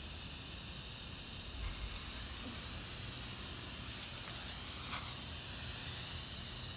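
Firework smoke bomb burning on pavement, pouring out smoke with a steady hiss that gets slightly stronger about a second and a half in.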